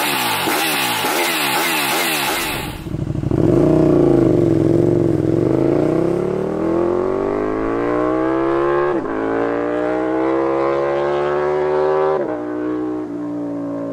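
KTM 1290 Super Duke R V-twin engine through an Austin Racing GP1R titanium end can, accelerating hard. Its pitch climbs and drops sharply at two gear changes in the second half. In the first few seconds the exhaust is heard with a hissier, rapidly wavering sound that cuts off suddenly.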